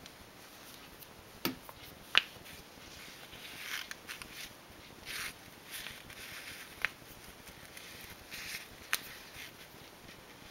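Handling noise from sewing a knitted piece stuffed with polyester fiberfill over a plastic template: soft rustling swishes as the thread is drawn through the knitting, with a few sharp light clicks, the loudest one about two seconds in.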